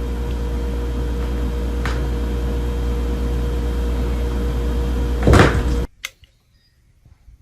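Steady mechanical hum of a running appliance, with a faint knock about two seconds in and a louder knock about five seconds in; the hum then cuts off suddenly, leaving near quiet.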